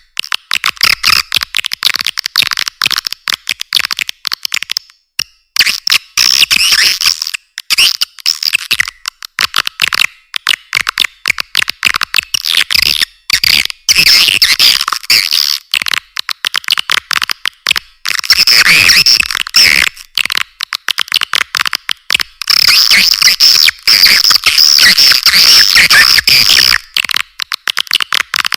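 Swiftlet call-sound lure recording: dense, rapid, high-pitched swiftlet twittering and chattering that comes in long bursts, with short breaks every few seconds.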